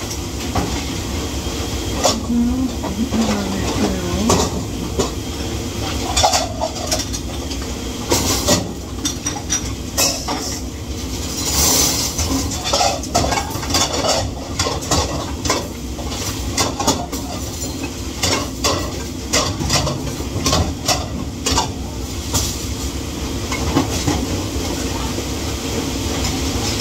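Dishes and cutlery clattering and clinking in irregular knocks during dishwashing, over a steady low hum.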